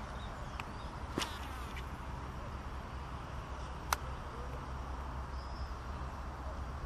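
Steady wind rumble buffeting the camera microphone, with two sharp clicks, one about a second in and a louder one about four seconds in.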